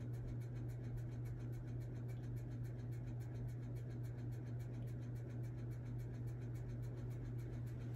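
Steady low background hum in a small room, with no distinct strokes or knocks.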